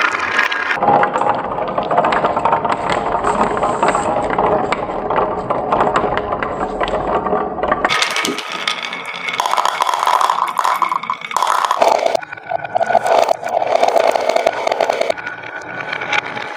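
Several marbles rolling and clattering along a wavy groove in a wooden board: a continuous rattle of rapid clicks and scraping as they knock against each other and the wood.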